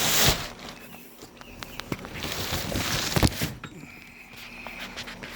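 Rustling and knocking of packaging being handled as a new chainsaw is taken out of its shipping box, in two spells with a few sharp knocks.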